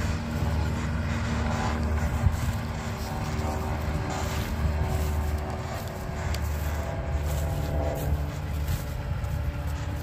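Tractor engine running steadily as it tows a fertiliser spreader broadcasting dry cow manure, a steady low rumble.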